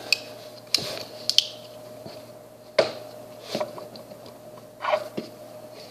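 Sharp metal clicks of a Leatherman Wave multi-tool being handled as its flat-head screwdriver bit is worked out of the bit holder: several separate clicks, a second or so apart.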